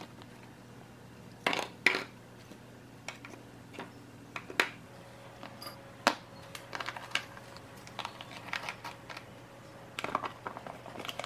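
Plastic lunchboxes and food being handled on a countertop: scattered light clicks and knocks as pieces are set into the plastic containers, with a quick run of small clicks near the end as a lid is fitted.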